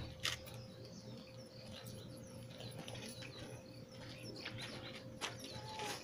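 Small birds chirping again and again over a faint steady hum, with a few sharp clicks standing out, the loudest just after the start and about five seconds in.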